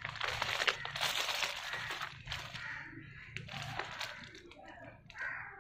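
Thin plastic bag crinkling and crackling as it is handled, dense for about the first two seconds, then thinning out to scattered crackles.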